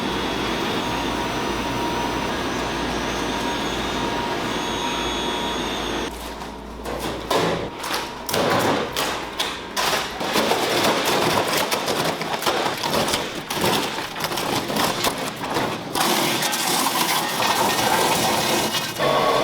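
Food-processing factory machinery. A steady mechanical noise with a low hum runs for about the first six seconds, then gives way to irregular clattering and knocking for about ten seconds, and a steady whirring noise takes over again near the end.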